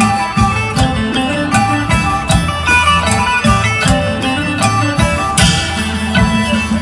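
Live traditional northeastern Thai folk ensemble playing: plucked lutes carry the melody over a steady drumbeat. A brief splash of cymbal-like hiss comes about five seconds in.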